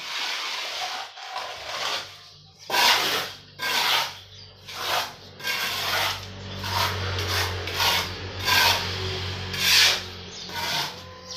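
Steel hand trowel scraping wet cement plaster onto a concrete block wall, in a string of short strokes.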